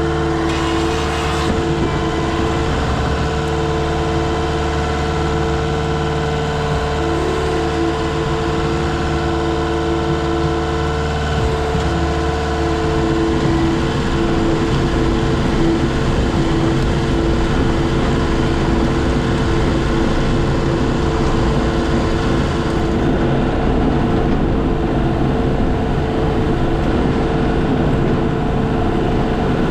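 Skid steer engine running steadily, with a deep even hum. About halfway through the sound turns rougher and the low hum breaks up into a coarser rumble.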